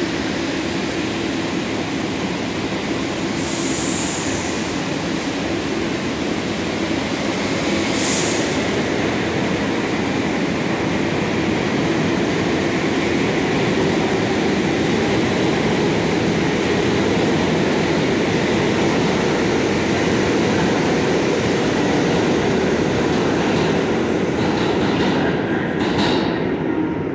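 R62A subway train pulling out of the station and running off into the tunnel: a steady rumble of wheels on rail, with two short high wheel squeals about 3.5 and 8 seconds in, dropping off slightly near the end.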